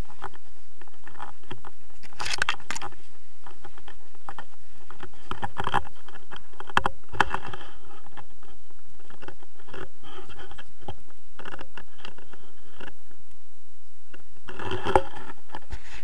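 Handling noise on a harness-mounted action camera during a tandem paraglider landing on snow: wind on the microphone with irregular scrapes and knocks as the harness and clothing rub against the camera.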